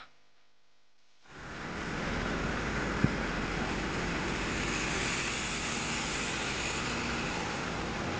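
Steady jet-aircraft noise on an airport apron: a constant rushing roar spread across all pitches, setting in about a second in, with a single short click about three seconds in.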